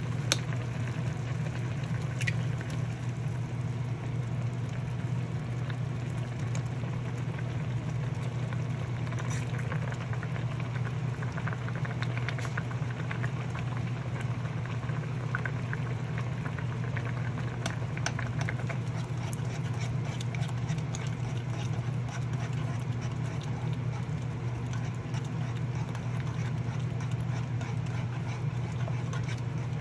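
A pot of water or broth boiling for ramen: a steady low hum with scattered small pops and ticks of bubbling.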